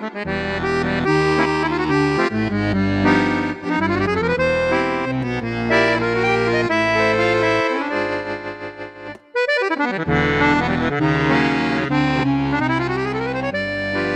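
Bugari EVO B55 chromatic button accordion playing a lively piece, melody over bass notes, with two quick rising runs and a short break in the playing about nine seconds in.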